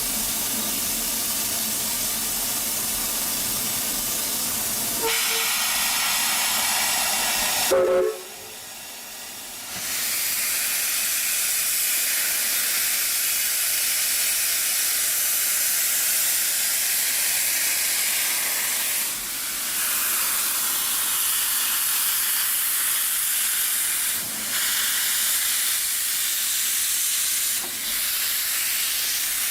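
Steam locomotive Roy O. Disney #4 standing with steam hissing steadily. About eight seconds in there is a brief louder burst with a couple of short tones, the sound drops off for a couple of seconds, then the hiss of venting steam resumes.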